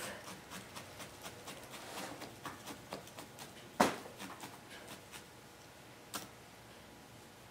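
Felting needle stabbing repeatedly through wool into a felting pad: faint soft ticks about four a second, with a sharper click about four seconds in and another about six seconds in, fading out over the last second or so.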